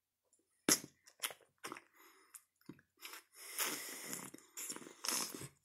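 Mouth sounds of eating a green apple jelly fruit candy, its plastic shell squeezed at the lips: a few short sharp clicks about a second in, then longer stretches of chewing and breathing.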